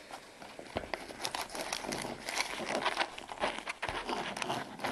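Rustling and crinkling of a fabric canteen pouch and plastic-wrapped kit items being handled and rummaged through, with many small irregular clicks and taps.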